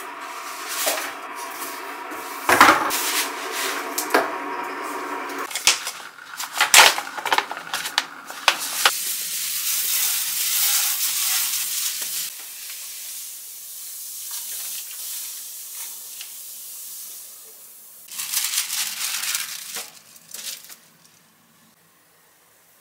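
Sink-cleaning sounds: a pouch of sodium percarbonate handled, with clicks and knocks, then hot water poured into a stainless steel sink as a steady hiss for a few seconds that trails off. Near the end, plastic film crinkles as it is laid over the sink.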